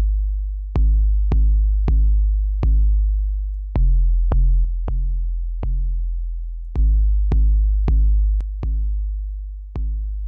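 Drum-machine beat with long 808 bass notes: a sharp click on each hit over a deep, sustained bass tone that fades away before the next, in an uneven hip-hop rhythm of about two hits a second.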